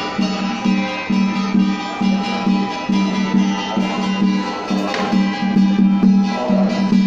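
Music with a low note pulsing in a steady beat.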